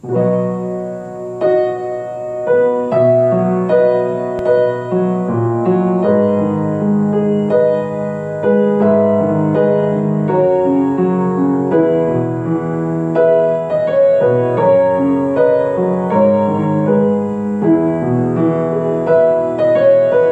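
Upright Wagner piano played with both hands in B major, a run of plain block chords changing every second or so. The chords are played pure, without the root and fifth of the key held throughout, which gives the more beginner-like sound.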